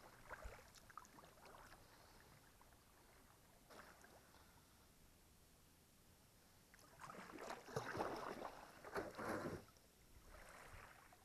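Kayak paddle splashing in the water, faint for most of the time, with a louder run of paddle strokes in the last third.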